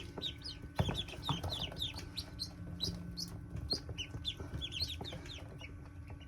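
Ducklings peeping: many short, high chirps that fall in pitch, overlapping continuously. A couple of light knocks come about a second in.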